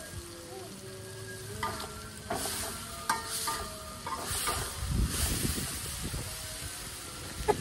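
Metal spatula stirring and scraping in a wok, with food sizzling in hot oil; the scraping and clatter pick up about two seconds in.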